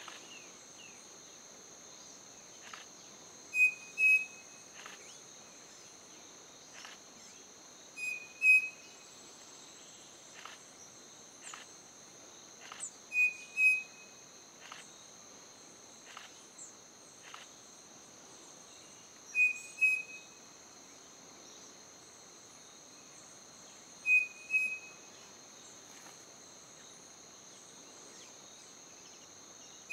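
Striped cuckoo singing its two-note whistled song, a pair of clear whistles repeated five times about every five seconds. A steady high insect drone runs behind it.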